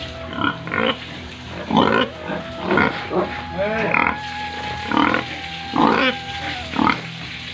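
Pigs grunting and squealing: a dozen or so short, harsh calls, roughly one or two a second, with a steady faint tone behind them.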